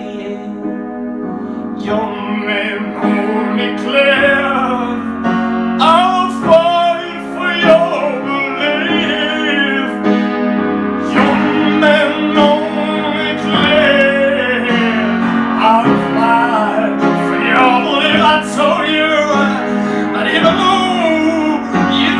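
Upright piano playing chords with a voice singing over it in long, wavering held notes.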